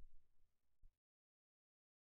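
Near silence: the faint tail of electronic music fading out, with one last low beat just under a second in, before the sound cuts off completely.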